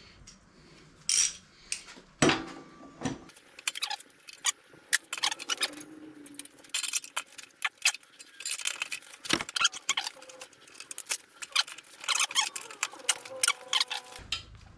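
Metal tools and engine parts clinking and rattling while a Briggs & Stratton mower engine is worked apart by hand: a long run of irregular light clicks and clinks, with a louder knock or two near the start.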